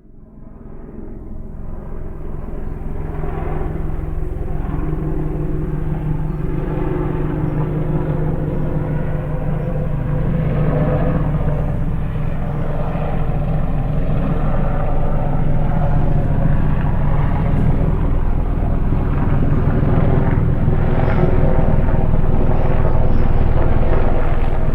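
Aircraft engine running steadily, fading in over the first few seconds and slowly growing louder.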